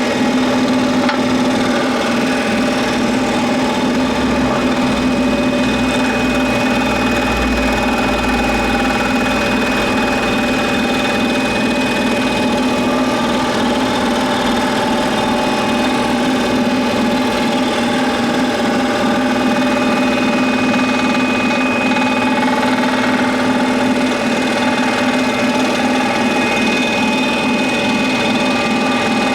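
Scroll saw running steadily, its reciprocating blade cutting through 40 mm thick pine.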